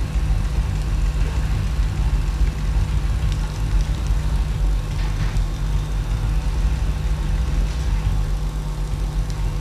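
Steady low hum of running equipment, with a faint steady higher tone above it and a few faint ticks.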